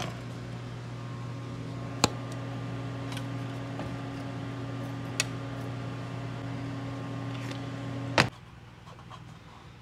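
Battery charger humming steadily, powering a rust-removal bath, with a few sharp clicks. About eight seconds in, a loud click and the hum cuts off suddenly.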